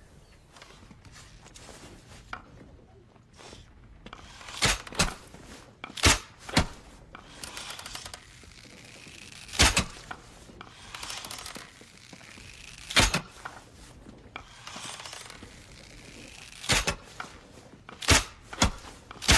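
A bow being shot repeatedly: sharp knocks of the string's release and arrows striking, about ten in all, several coming in quick pairs, with softer rustling between shots.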